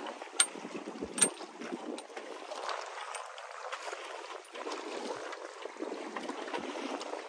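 Water lapping and gurgling, with two sharp clicks in the first second and a half.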